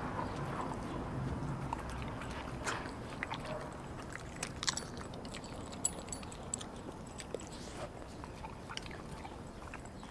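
A dog chewing raw meat and bone from a stainless steel bowl: irregular wet crunches and sharp clicks of teeth. A low background rumble is heard under the first couple of seconds.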